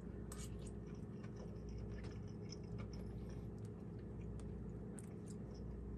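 Faint scattered crackles and ticks from hot broth settling in an enamel roasting pan, over a steady low hum.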